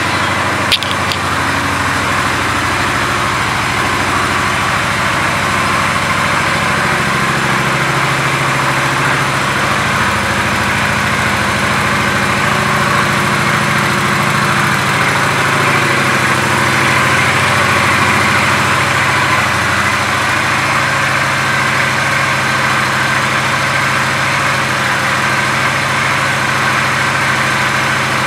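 Honda Shadow Phantom's 745 cc V-twin engine idling steadily, freshly started, with a short click near the start.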